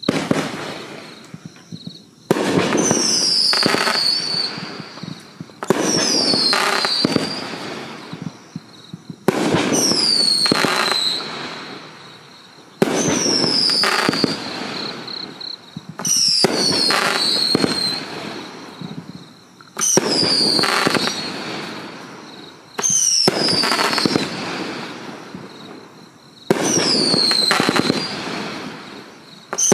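Miracle Fireworks 'Men of Honor' 20-shot cake firing in volleys about every three and a half seconds. Each volley is a sudden loud shot with a whistle falling in pitch, followed by crackling that fades away before the next.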